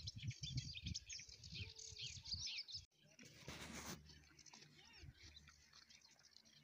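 Small birds chirping and twittering, faint, over a low irregular rumble. About three seconds in the sound drops out for an instant, then a brief rush of noise follows, with fainter chirps after it.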